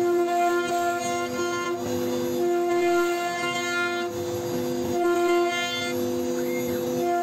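CNC router spindle whining steadily as its bit carves grooves in a wooden panel. The higher part of the whine drops out briefly about two seconds in and again about four seconds in.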